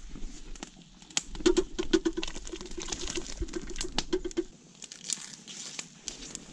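Chopped potatoes and vegetables tipped from a bowl into a metal camp cauldron, the pieces knocking and rattling against the metal in a quick clatter that lasts about three seconds, followed by a few lighter clicks.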